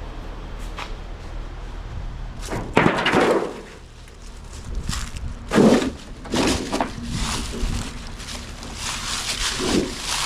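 Thin sheet-steel door skin being bent and pulled by hand: a few sharp crinkling, scraping bursts of metal, loudest about three seconds in and just before six seconds, over a steady low hum.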